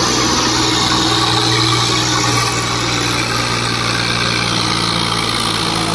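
Two-wheel-drive tractor's diesel engine running hard and steady under load as it strains to haul a loaded trolley up an incline.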